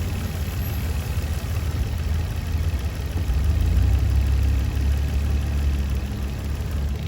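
2004 Nissan Maxima's 3.5-litre V6 idling roughly. The rough idle comes from a lean condition, codes P0171 and P0174, caused by a vacuum leak at a cracked PCV hose.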